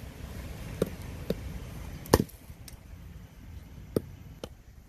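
A heavy cleaver-style chopper with an SK85 steel blade, the C.U.M.A. King Destructo, chopping into a thin green branch lying across a log: a series of about five or six uneven blows, the loudest about two seconds in.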